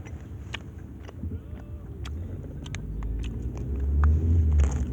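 Road rumble inside a moving car's cabin, swelling louder toward the end, with a few light clicks over it.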